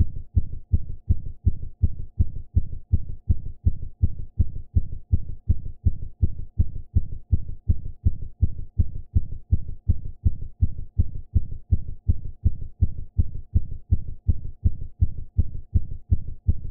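Sound-effect alien creature heartbeat: a fast, perfectly even rhythm of deep, low thumps that keeps on without a break.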